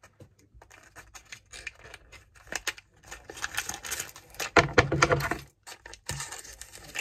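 Crinkling and tearing of a Mini Brands capsule's checkered wrapper being twisted and pulled open by hand, loudest a little after the middle, with scissors snipping at it near the end.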